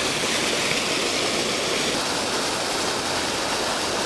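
Steady rush of water pouring out of a sewage plant's spillway outlet and churning white into a creek.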